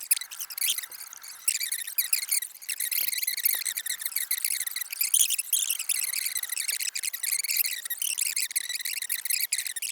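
Night insects, crickets among them, chirping in a dense, high-pitched, rapidly pulsing chorus.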